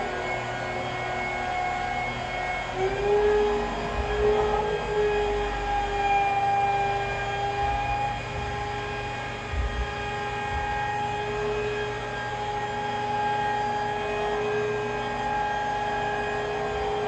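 Electric rotary polisher buffing a scratch out of glass: a steady motor whine whose pitch steps up about three seconds in and then holds, with a few low bumps from the pad on the glass.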